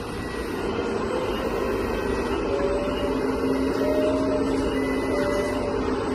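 1:14-scale hydraulic RC bulldozer running: a steady whine from its electric hydraulic pump and drive motors, stepping a little in pitch and growing louder over the first second.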